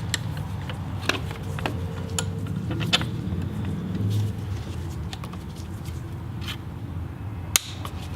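Scattered clicks and taps of a screwdriver prying up the plastic retaining tabs of a manual-transmission shifter held in a bench clamp, freeing the shifter from its base. The sharpest click comes near the end, over a steady low background hum.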